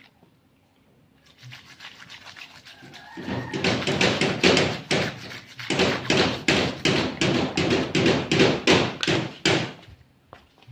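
Hand scrubbing strokes on a motorcycle engine part being cleaned. The strokes are faint at first, turn loud and rhythmic about three seconds in at roughly three to four a second, and stop shortly before the end.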